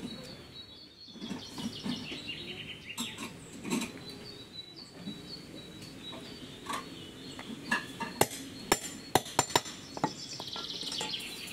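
Sharp metallic taps and clinks, with a quick cluster of them about eight to ten seconds in. Birds sing over them, with a quick descending trill of chirps early on and another starting near the end.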